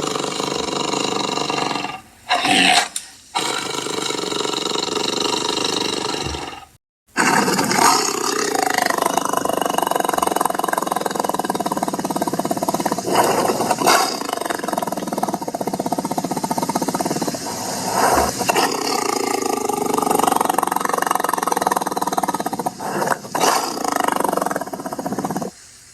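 Big-cat roar sound effects: a couple of short roars, a brief break, then a long unbroken run of roaring and growling.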